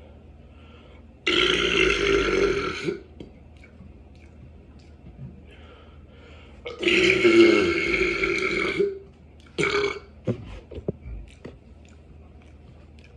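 A person burping deliberately: two long drawn-out belches of about two seconds each, a few seconds apart, then a short third burp.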